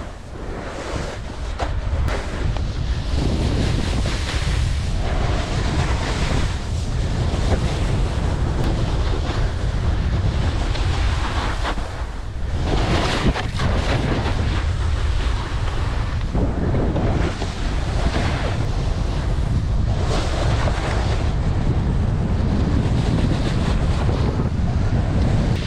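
Snowboard sliding and scraping over sun-cupped spring snow, a continuous hiss that surges and eases through repeated turns, mixed with wind rushing over the camera's microphone.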